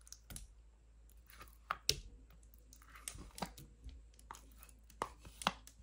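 Cottage cheese being emptied from its plastic tub into a glass mixing bowl: irregular soft wet squelches and plops with a few sharper knocks against the tub and bowl, loudest about two seconds in and again near the end.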